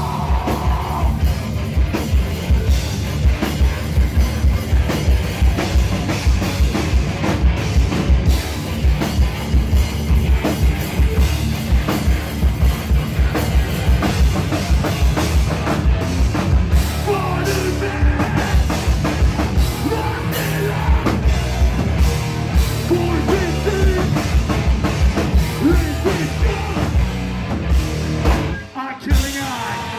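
Hardcore band playing live and loud: fast, pounding drums with distorted electric guitars and bass, and shouted vocals. The band stops for a moment near the end, then the guitars come back in.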